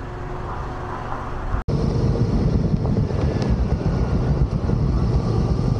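Riding a 2005 Honda Transalp XL650 motorcycle: wind buffeting the microphone over the steady rumble of its V-twin engine. It cuts out for an instant about one and a half seconds in and comes back louder.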